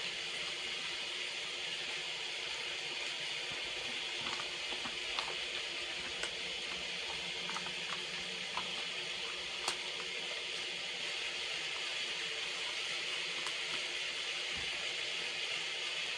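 Steady hiss of rain falling, with a few faint clicks scattered through it.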